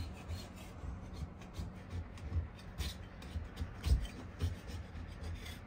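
Handheld scraper scraping wallpaper, softened with remover spray, off a wall in short, irregular strokes, with soft knocks between them.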